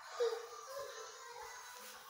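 Background music, with a brief louder sliding tone about a quarter second in.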